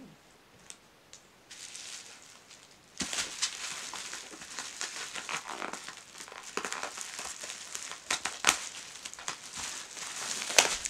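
Plastic packaging crinkling and tearing as it is cut open with scissors and pulled off by hand, starting about three seconds in, with a few sharp snaps.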